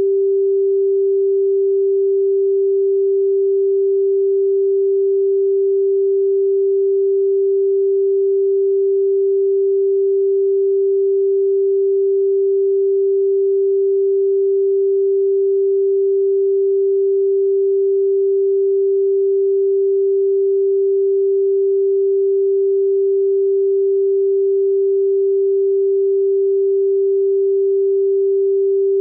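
A steady pure sine tone at 392 Hz, the musical note G4, held at one unchanging pitch and level.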